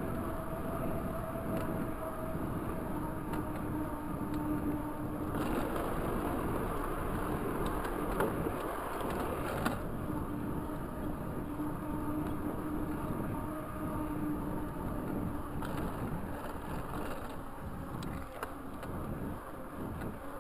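Raleigh Talus 29er mountain bike rolling along an asphalt trail: steady tyre and road noise with a faint hum held at one pitch. It gets louder for a few seconds from about five seconds in, with two sharp knocks, like bumps in the path.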